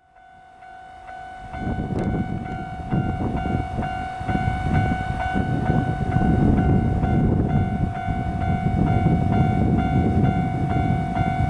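Railway level-crossing warning bell ringing in a steady rhythm of about two strokes a second over a constant tone, with a loud low rumble that swells during the first two seconds.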